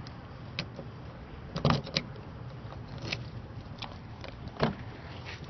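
A Toyota Camry's door being opened, with scattered clicks and knocks, loudest in a short cluster about two seconds in.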